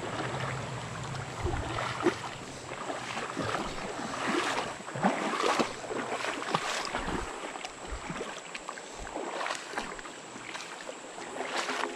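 Water splashing and sloshing in a shallow creek, in uneven strokes about one or two a second.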